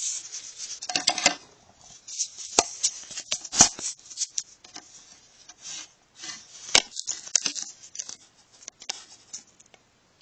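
Handling noise of a phone being moved and propped up on a hard surface: irregular clicks, knocks and rubbing against the microphone, with the sharpest knocks about two and a half, three and a half and almost seven seconds in.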